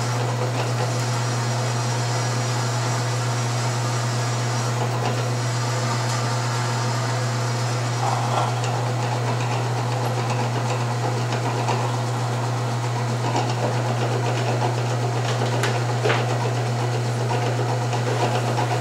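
Drill press running with a steady low hum while a freshly sharpened 3/32-inch bit drills through steel angle iron.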